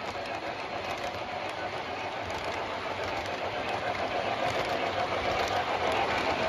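O scale model passenger cars rolling on three-rail track: a steady rumble of metal wheels on rail with faint clicks, slowly growing louder.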